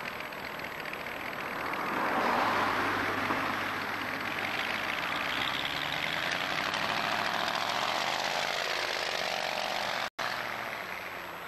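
Motor vehicle engine passing on the road, the sound swelling about two seconds in and holding, with its pitch sweeping up and down. The sound drops out for an instant near the end.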